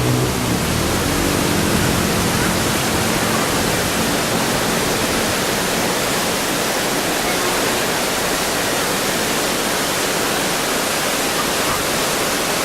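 Lembah Anai waterfall: a steady, dense rush of falling water.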